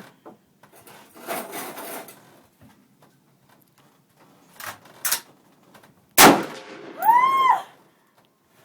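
A single loud gunshot about six seconds in, followed a second later by a woman's short high shriek that rises and falls. Before the shot there is a faint rustle and two light clicks.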